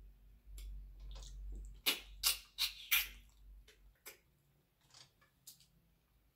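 Close-miked eating sounds of seafood eaten by hand: a run of sharp, wet clicks and smacks, loudest in a cluster of four about two to three seconds in. A low hum underneath stops about four seconds in.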